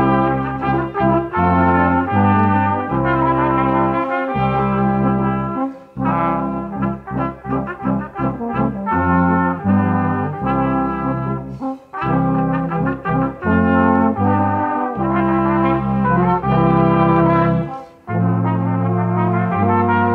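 Brass ensemble of trumpet, trombone, French horn and tuba playing a piece together, with sustained chords and a passage of quick repeated notes. The music breaks off briefly three times, about every six seconds, between phrases.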